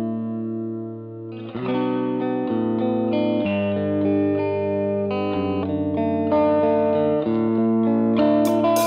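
Background music, a guitar-led instrumental track. It thins out briefly about a second in, then a fuller section comes in.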